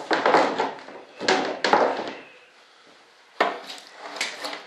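Moulded composite RC jet wing being pried and lifted out of its mould: three bursts of sharp cracks and knocks as the part releases from the mould.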